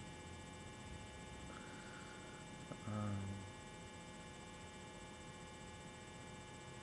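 Quiet room tone with a steady electrical hum and faint whine picked up by the webcam microphone. About three seconds in, the person makes one short voiced sound lasting about half a second.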